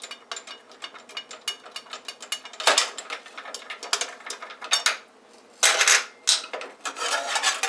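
Metal clicks and clanks from a DeWalt DWS779 mitre saw's reverse-thread blade bolt and blade being worked loose by hand: a run of quick light clicks, then several louder metallic clanks and a rattle near the end.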